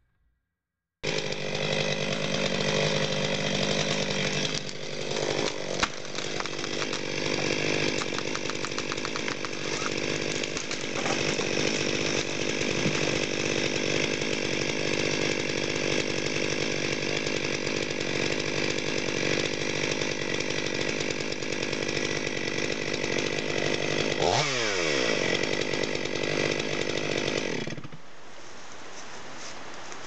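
Stihl MS 500i fuel-injected two-stroke chainsaw running at full throttle, cutting wood with a steady high engine note. It dips briefly about five seconds in, gives a quick falling sweep in pitch near the end, and cuts off sharply about 28 seconds in, leaving a quieter steady hiss.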